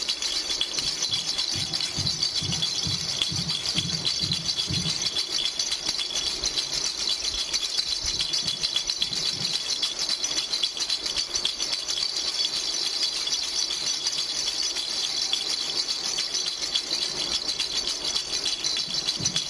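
Plastic baby rattle shaken continuously, a fast steady rattling of beads, with some low handling thuds in the first few seconds.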